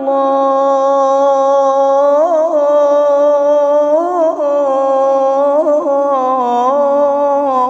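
A man's voice singing the adhan, the Islamic call to prayer, in the Mecca style. He holds one long note on the closing "Allah" of "ashhadu an la ilaha illallah". The note swells into wavering melismatic turns about two, four and six seconds in, then settles slightly lower near the end.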